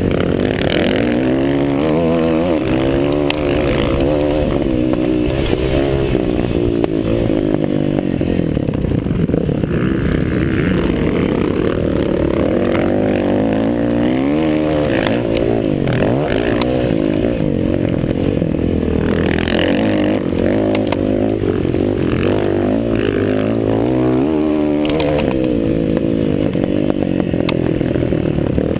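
Several motocross bikes racing, their engines revving up and down through the gears over one another, with rising and falling sweeps around 14 to 16 seconds in and again near 24 seconds.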